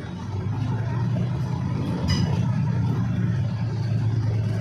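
Diesel railcar engine running steadily with a low hum, growing louder in the first second as it comes under power. A single sharp clank with a short high ring about two seconds in.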